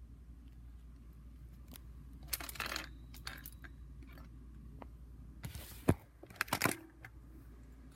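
Handling noises: a few short rustles and sharp clicks, the loudest a click about six seconds in, followed by a quick cluster of clicks, over a low steady hum.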